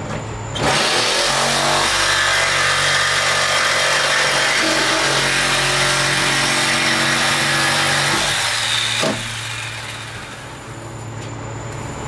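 Corded jigsaw cutting through the sheet-metal panel of a van's sliding door: a loud, steady motor whine with the rasp of the blade, starting just under a second in and stopping at about eight and a half seconds, followed by a single knock.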